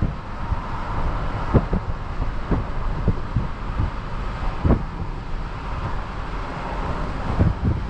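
Jeep Wrangler Rubicon driving at a steady pace: road and vehicle noise with wind buffeting the microphone through the open side window in uneven low thumps, the strongest about one and a half seconds in and near the middle.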